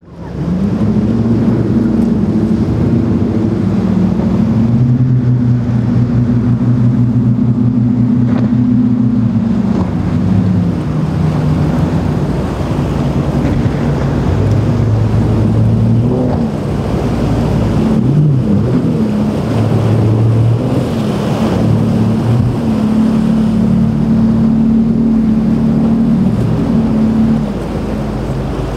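Outboard motors on center-console boats running hard through rough water, the engine note shifting in pitch as boats pass and change throttle. Waves, spray and wind on the microphone run underneath.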